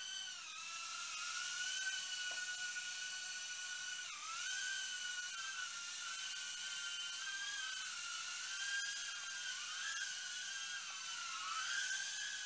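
FuryBee F36 mini quadcopter flying, its tiny motors and propellers making a high-pitched whine whose pitch keeps wavering up and down as the motors adjust, with a sharp dip about four seconds in.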